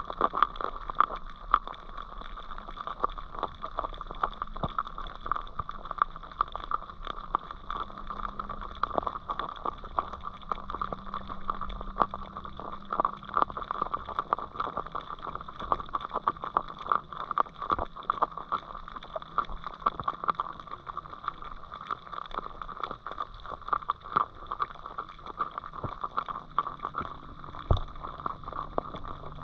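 Underwater ambience picked up by a camera submerged in a river: a steady hiss with dense, irregular small clicks and crackles and a few sharper knocks.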